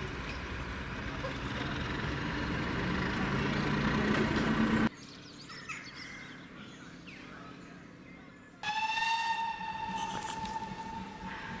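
A diesel locomotive's engine runs as it approaches, growing louder, then stops abruptly. After a quieter stretch with faint birdsong, a train whistle sounds one long, steady note.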